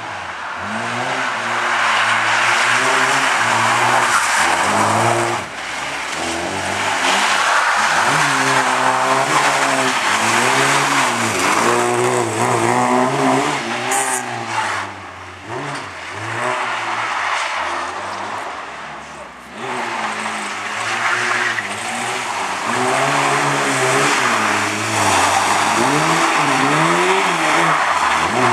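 A Lada saloon's four-cylinder petrol engine, revving hard and falling back over and over as the car accelerates out of one tight turn and lifts for the next, with short lulls where the throttle is closed.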